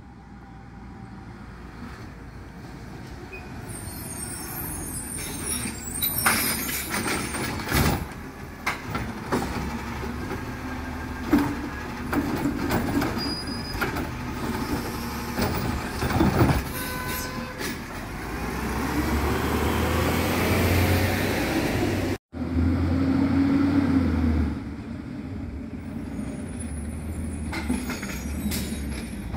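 Automated side-loader garbage truck pulling up with its engine running, and a few sharp clanks and bangs as its hydraulic arm grabs, lifts and dumps a recycling cart. The engine revs up, rising in pitch, before the sound cuts off abruptly and another garbage truck's engine is heard running as it approaches.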